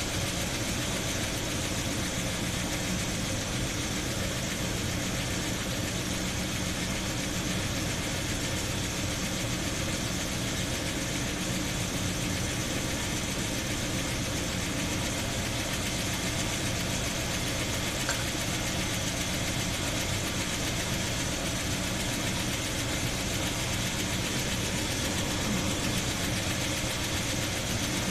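1976 Chevy Blazer's V8 engine idling steadily with the air cleaner off the carburetor.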